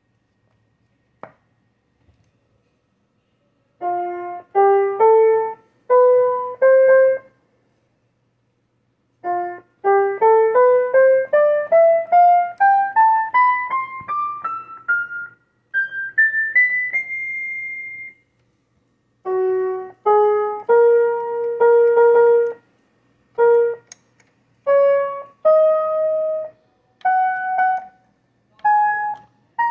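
Casio SK-1 sampling keyboard played one note at a time: a few notes, then a scale climbing steadily over about two octaves to a held high note, then more separate notes. A single click comes about a second in, before the playing starts.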